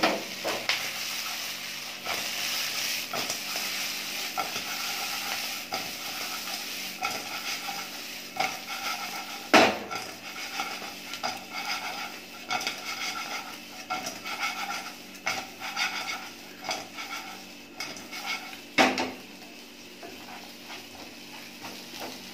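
Fried chicken pieces being stirred and tossed in a hot nonstick wok with a wooden spatula: a steady sizzle under repeated scraping and clacking of the spatula against the pan. There is a louder knock about halfway through and another near the end, after which the sizzle dies down.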